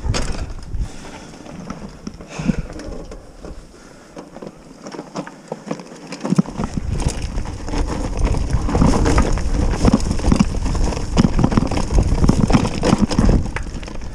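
Mountain bike on a rough downhill trail: scattered knocks at first, then from about six seconds in a steady rumble of wind on the microphone and tyres over rough ground, with the bike rattling and clattering over bumps.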